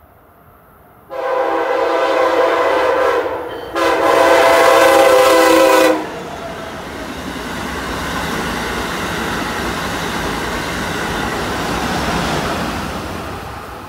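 Amtrak Acela Express trainset sounding its horn in two long blasts, the first starting about a second in and the second right after a short break. The train then passes with a steady rush and rumble of wheels on rail that swells and then fades near the end.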